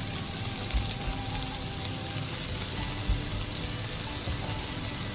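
Sliced meat and carrots coated in spicy curry powder sizzling steadily in a frying pan, with two soft knocks, one a little under a second in and one about three seconds in.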